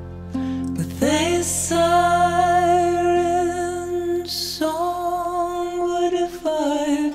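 A song: a woman singing long held notes with a slight waver, over a low sustained accompaniment.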